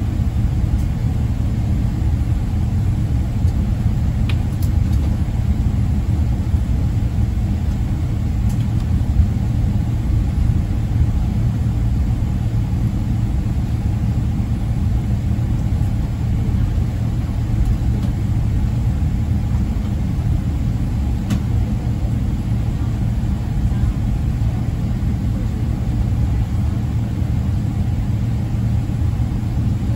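Cabin noise inside a Boeing 777-300ER on the ground: a steady low rumble from its GE90 engines running at low power, holding even without building up for takeoff.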